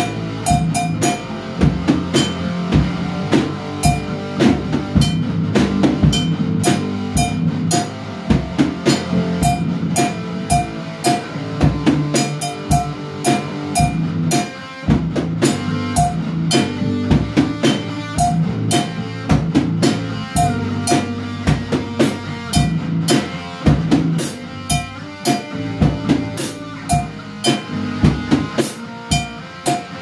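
Live band playing an instrumental rock groove: acoustic drum kit with steady kick and snare under electric guitar, with a short higher note recurring through it.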